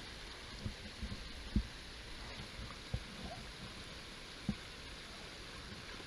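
Small rocky creek running steadily over stones, a constant rushing hiss, with a few dull low knocks scattered through it.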